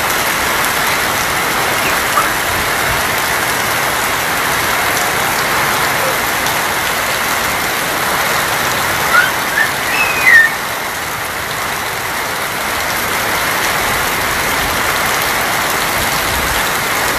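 Steady heavy rain falling on a corrugated tin roof, with a few short high chirps about halfway through.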